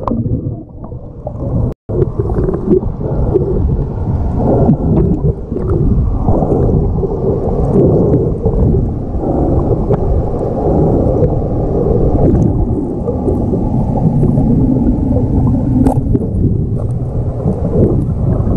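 Muffled underwater rumble and gurgling of moving water, picked up by a submerged camera, with a brief dropout about two seconds in.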